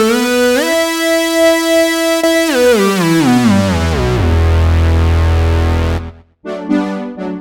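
Retro synthesizer patches from the Spectrasonics Omnisphere software synth. A held lead sound glides up and down between notes, then slides steadily down over about two seconds into a low droning note that cuts off about six seconds in. After a short gap, a keyboard-like patch starts playing repeated chords in a quick rhythm.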